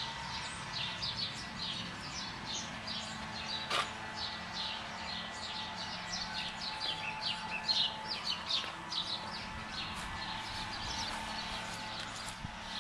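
Small birds chirping busily, short high notes several a second, over a faint steady hum.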